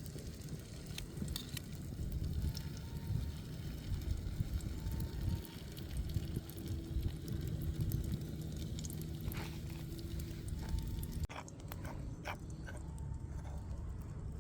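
Open wood cooking fire crackling, with scattered sharp pops over a steady low rumble.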